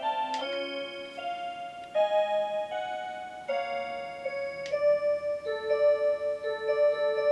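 Seiko Melodies in Motion musical wall clock playing a song from its built-in electronic melody list through its small speaker. It is a simple tune of clear, sustained notes, with a sharper struck accent about half a second in and again near five seconds.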